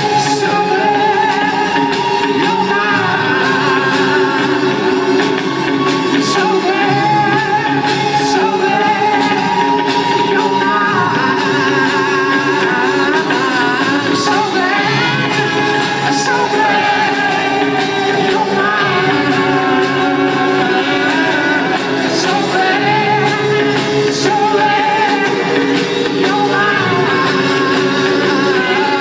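Rock band playing live with singing, heard from the audience inside a large arena; the music is loud and steady, with some shouting.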